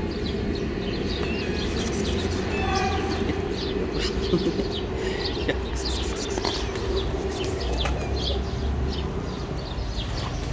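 Small birds chirping repeatedly, short quick high chirps throughout, over a steady low background hum.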